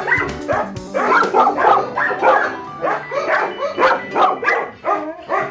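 Dogs barking and yipping in a rapid, overlapping run of short barks, about three or four a second, with background music under them.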